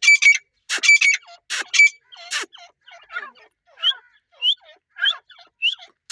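Teetar (francolin) calling: loud, harsh repeated calls for the first two seconds, then quieter, short rising notes repeated about twice a second.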